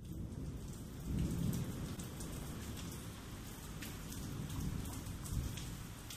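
Steady rain with low rumbles of thunder, which swell about a second in and again after four seconds.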